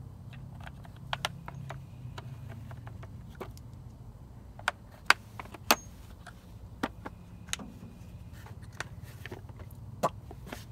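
Hand tools clinking and tapping against the sawmill's steel frame and cable fittings: a string of sharp, irregular metallic clicks, loudest about five seconds in, over a low steady hum.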